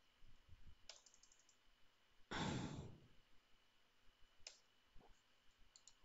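A loud breath out, a sigh into the microphone, about two seconds in. Around it are a few faint computer keyboard clicks as a command is typed.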